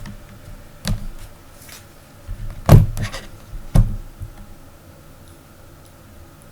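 Knocks and taps of a laptop's LCD panel and tools being handled on the chassis as the panel is flipped down for screwing in: three clear knocks about a second apart, the loudest near the middle, with a few lighter clicks between them.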